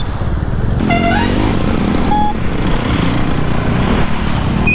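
Bajaj Dominar 400's single-cylinder engine running as the bike rides through traffic, with a short horn beep about two seconds in.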